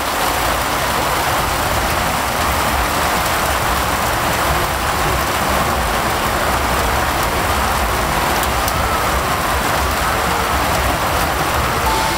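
Heavy rain bucketing down, a steady, loud hiss of rain pouring onto a waterlogged road.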